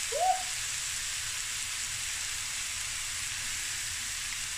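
Boneless chicken thighs sizzling steadily as they fry in a stainless steel pan. A short rising vocal sound from the cook comes right at the start.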